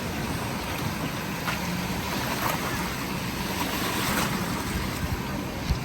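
Ocean surf breaking and washing through the shallows, a steady rushing noise, with wind rumbling on the microphone.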